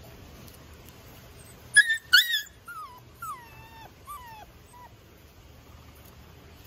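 Goldendoodle puppy yipping twice, sharp and high, about two seconds in, then whining in about four short cries that each slide down in pitch.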